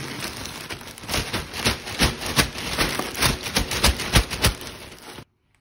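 Plastic courier mailer bag crinkling and tearing as it is ripped open by hand: a dense crackle full of sharp snaps that cuts off suddenly near the end.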